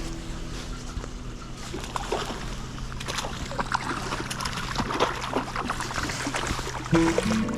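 Water splashing and trickling with irregular small splashes, at the water's surface. Music comes back near the end.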